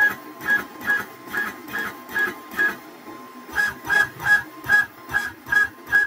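AnoleX 4030-Evo Ultra 2 CNC router's stepper motors jogging the axes in short repeated moves, about two a second, each a brief high whine. They pause for about a second near the middle, then the moves resume.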